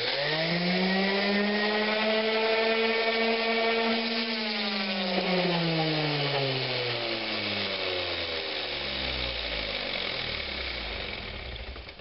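Random orbital sander switched on, its motor whining quickly up to speed and running steadily for about four seconds. It is then switched off and winds down with a slowly falling whine for the rest, its spinning pad coasting to a stop inside a metal paint can lid that keeps it from wandering.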